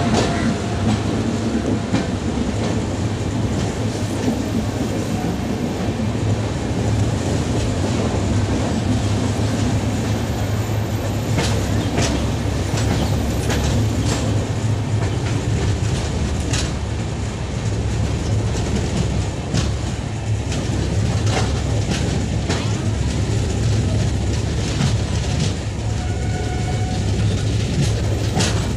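Two passenger trains crossing on adjacent tracks, with the coaches of one running close past the other: a steady loud rumble with the clickety-clack of wheels over rail joints, sharp clicks coming at irregular intervals.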